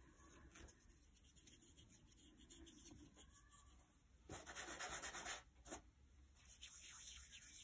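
Faint rustle of white wool fibres being pulled apart by hand into a small wisp and laid on the felt, in two brief spells about halfway through and near the end.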